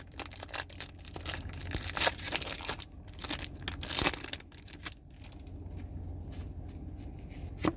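Small Pokémon trading-card packs being torn open, their wrappers crackling and crinkling. The tearing is dense for about the first five seconds, then gives way to quieter handling.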